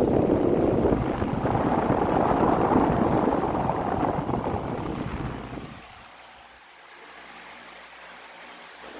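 Sintex VM240 table fan blowing air onto the microphone, a loud rumbling wind rush. About six seconds in the rush fades away, leaving a faint steady motor hum, and it starts to build again at the very end.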